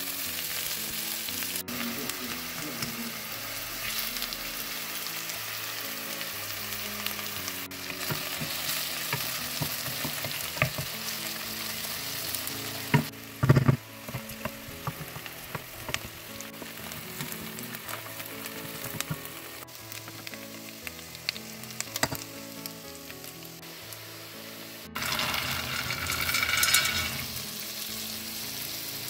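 Chopped onion frying in oil in a stainless steel pot: a steady sizzle, with a wooden spoon stirring through it. There is a sharp knock about halfway through, and a louder burst of sizzling near the end.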